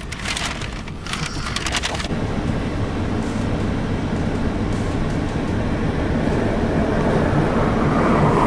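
A paper takeout bag rustles and crinkles for about two seconds. Then comes the steady noise of a car running on a snowy road, growing louder as it pulls up alongside.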